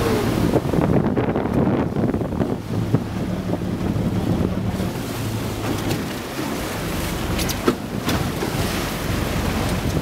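Sea water rushing and washing along the hull of a fishing boat in a heavy swell, with wind buffeting the microphone over a steady low engine hum. A single sharp knock comes about three-quarters of the way through.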